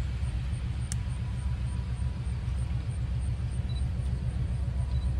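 Diesel locomotive Illinois & Midland 31, an EMD RS1325, running in the distance as it draws nearer: a steady deep rumble.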